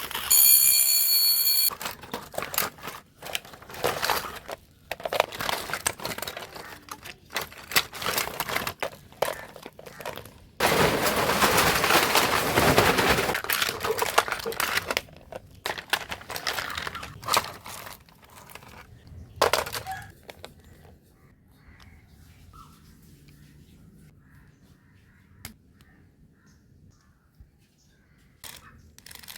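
Plastic parts being handled and broken apart: irregular clicks, cracks and knocks, with a short high ringing tone at the start and a harsh rushing noise of about two and a half seconds in the middle. Only faint scattered ticks remain near the end.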